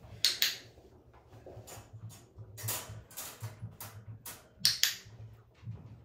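Scattered light clicks, rattles and rustles from a wire dog crate as treats are handed in to a puppy lying inside it. The sharpest clicks come just after the start and again about three-quarters of the way through.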